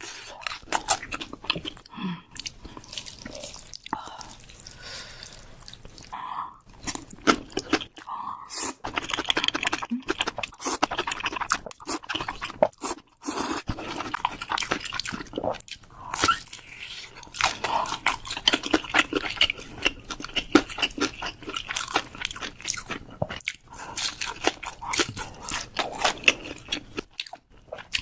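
Close-miked eating for a mukbang: chewing and crunching, a dense, irregular run of crunches and mouth clicks.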